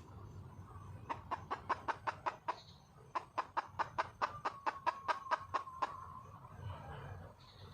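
Red junglefowl hen calling for a mate: two fast runs of short clucks, about six a second. The second run is louder and longer and ends in a drawn-out note.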